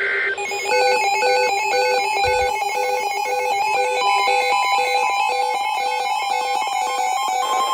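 Emergency alert broadcast tone: an electronic alarm of a steady tone with beeps pulsing about twice a second over it, just ahead of the warning message. A short burst of digital header tones cuts off right at the start.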